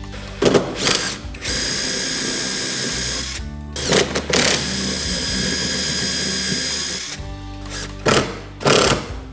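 14.4 V cordless drill boring holes into pine 2x4 lumber: two long runs of steady motor whine, with several short bursts of the drill around them. Background music plays underneath.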